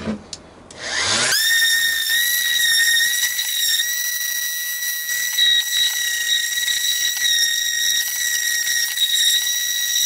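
Random orbit sander with 320-grit paper lightly sanding the top of a wooden cigar box: a few small handling clicks, then about a second in the motor starts with a quickly rising whine and runs steadily at speed.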